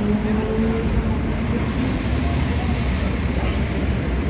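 Busy city street ambience: a steady low rumble of traffic with faint voices of passers-by mixed in. A pitched hum rises slightly and fades out within the first second.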